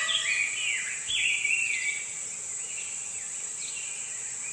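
Forest ambience: several short whistled calls of small birds over a steady high-pitched insect drone.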